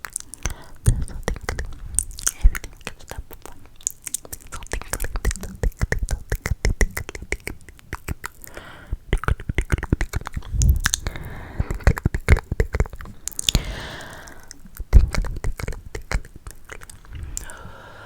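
ASMR mouth sounds close to the microphone: rapid, irregular wet clicks and smacks, with a couple of breathy, whispery moments.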